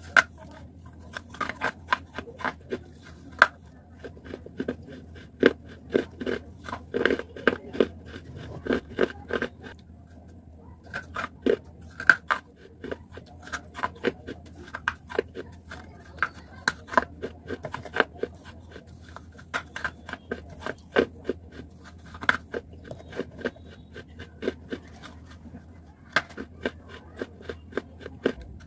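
Chunks of baked clay being bitten and chewed close to the microphone: a dense run of sharp crunches with chewing between, easing off briefly twice.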